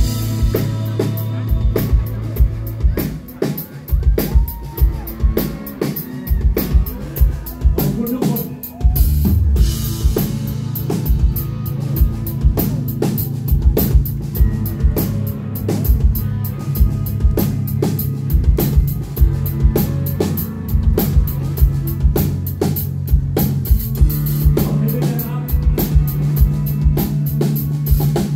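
Live rock band playing loud through the stage PA: a drum kit keeping a steady, regular beat under electric guitar.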